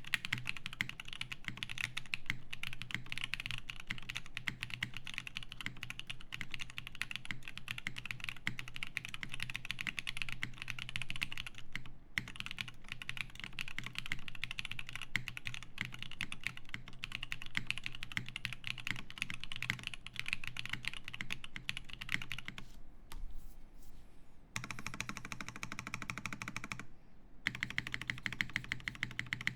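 Fast, continuous typing on a Bauer2 custom mechanical keyboard with lubed Zaku switches, a polycarbonate plate and GMK Olivia keycaps, the keystrokes running together in a dense clatter. Typing stops briefly a few times, the longest pause about two-thirds of the way through.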